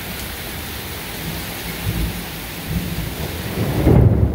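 Heavy rain pouring steadily, with thunder rumbling low underneath and swelling loudest near the end.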